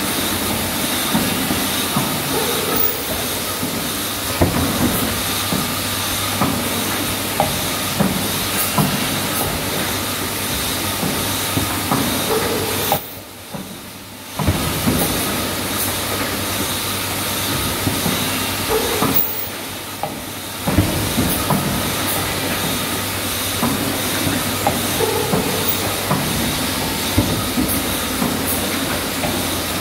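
Syringe assembly and blister packing machinery running: a steady hiss of compressed air with constant mechanical clatter and small clicks and knocks. The noise drops away briefly twice near the middle.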